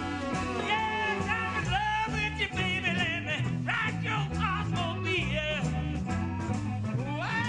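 Live band playing an instrumental passage: a bowed fiddle with sliding notes over button accordion, bass and drums keeping a steady beat.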